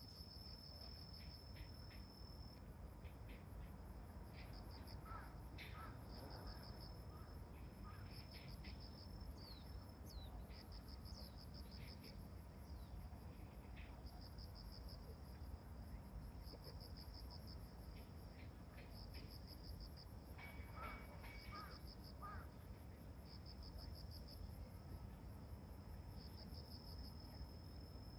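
Faint outdoor ambience of insects trilling steadily in long on-off stretches, over a low distant rumble. A few short bird calls come in twice, about five seconds in and again past the twenty-second mark.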